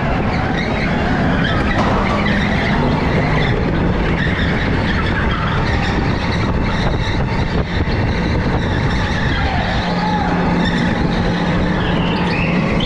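Electric go-kart running at speed, heard from on board: a steady, loud rush of motor and tyre noise as it corners.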